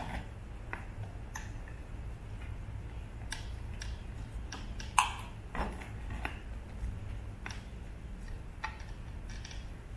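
Irregular light clicks and ticks from hand-stitching a leather cover onto a motorcycle lever, as needles and thread are handled against the lever, the sharpest click about halfway through. A low steady hum runs underneath.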